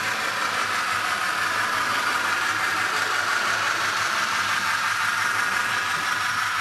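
Steam locomotive sounds from a Bachmann factory-installed sound decoder in an N scale Pere Marquette model, playing through its tiny onboard speaker along with faint wheel-on-rail noise. The sound runs steady without a break as the engine crosses the auto-reversing section, meaning the reverser switched polarity cleanly with no glitch.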